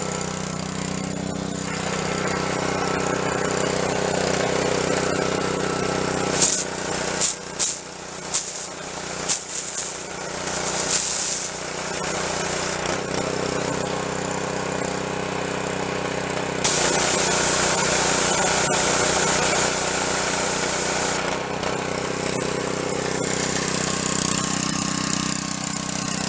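Pressure washer engine running steadily under the pump's load. In the middle there are several short hissing bursts of water spray, then a steadier spray hiss lasting several seconds.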